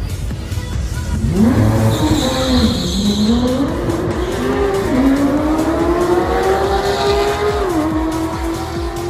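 Drag cars launching off the starting line and accelerating down the strip: the engine note climbs and drops back at each gear change, about five and eight seconds in. A tire squeal comes at the launch, about two seconds in.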